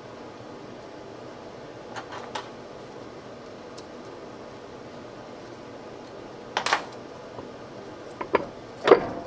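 Metal parts clinking and knocking as they are handled: a pair of light clinks about two seconds in, a louder clatter past the middle, and a few more near the end, the last the loudest.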